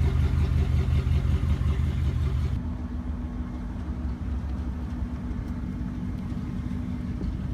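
A vehicle's engine running steadily, a low even hum; about two and a half seconds in the tone changes abruptly to a slightly quieter, different hum.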